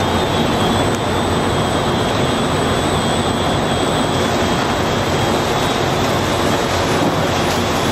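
Steady machinery noise of a running bottle-handling conveyor line: modular plastic belt conveyors carrying plastic bottles and merging them from two lanes into one.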